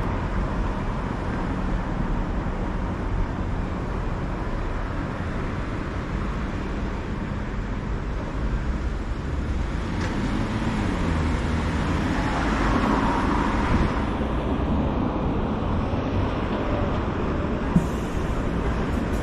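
Continuous city street traffic: cars and buses running along the road, with one engine passing and shifting in pitch about halfway through, and a single sharp click near the end.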